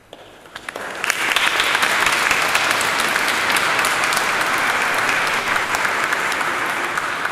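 Audience applause: a few scattered claps, swelling about a second in to full, steady applause.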